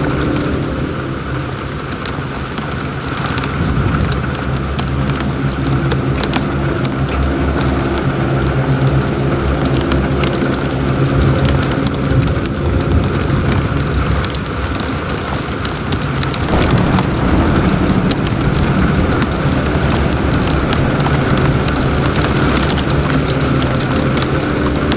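Heavy rain beating on a car's windshield and roof, heard from inside the cabin: a dense hiss with many sharp drop hits, over the steady low hum of the car. The hum shifts in pitch about two-thirds of the way through.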